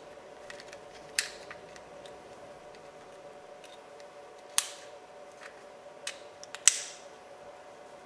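Sharp metal clicks and snaps as the lock cylinder's retaining clip is worked back onto an exterior door handle. There are about four distinct clicks, the loudest one about two-thirds of the way through, with lighter ticks between.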